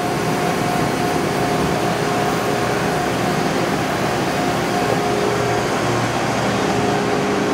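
Steady mechanical hum of a Tsugami BW12-III Swiss-type CNC screw machine running, an even whir with a few steady tones.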